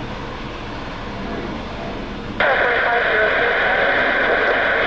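Air traffic control radio feed: steady background hiss, then about halfway through a loud burst of band-limited radio static as a transmission keys up, with faint garbled speech under the noise.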